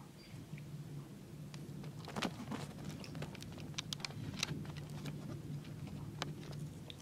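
Scattered sharp clicks and light knocks, clustered from about two to six seconds in, over a low steady hum.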